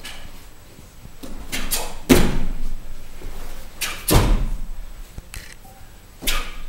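Taekwon-do practitioners' feet landing heavily on the foam floor mats after jumping kicks, two loud thuds about two and four seconds in, each with a short echo, between sharper snaps of the uniforms from fast strikes and kicks, the last one near the end.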